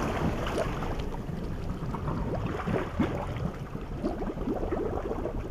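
Lake water lapping and gurgling around a submerged boat trailer, with many small bubbly splashes over a low rumble of wind on the microphone.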